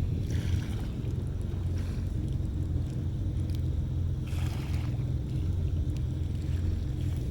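Steady low rumble of wind on the microphone aboard a small boat, with two short splashes of water, about a third of a second in and just over four seconds in.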